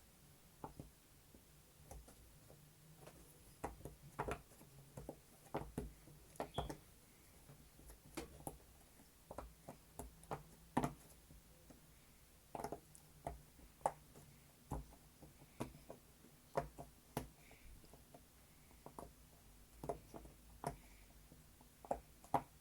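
Large flower-shaped silicone pop-it fidget toy having its bubbles pressed one by one: quiet, short pops, irregular, about one a second.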